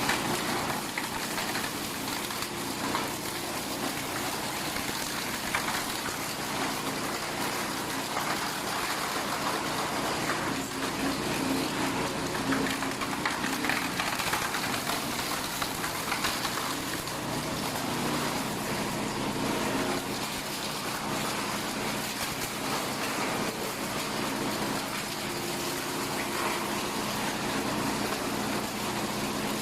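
Industrial plastic shredder running and breaking up plastic appliance shells, such as washing machine casings: a steady motor drone with dense, irregular crackling of plastic being torn apart.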